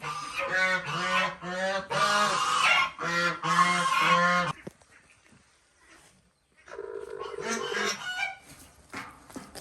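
A flock of domestic ducks quacking loudly, many calls overlapping, for about four and a half seconds. After a short lull, more scattered calls come near the end.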